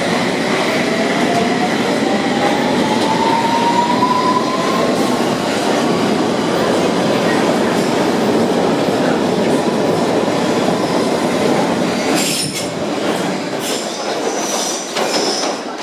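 London Underground Circle line train pulling out of the platform: a motor whine rising in pitch as it gathers speed over the rumble of the cars passing. About twelve seconds in the last car goes by and the sound falls away, with a few short high wheel squeals as it leaves into the tunnel.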